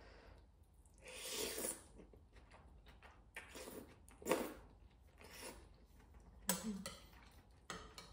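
A person slurping ohn no khauk swe (coconut chicken noodles) from a fork and spoon, several separate slurps with the loudest about four seconds in, and chewing in between.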